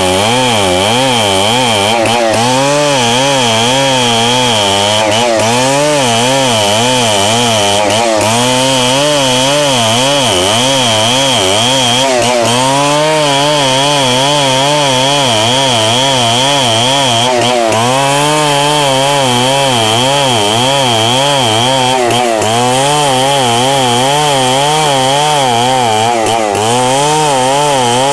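Stihl 070 two-stroke chainsaw running at high speed while ripping timber, its engine pitch wavering up and down about once a second under the load of the cut, easing off briefly every few seconds.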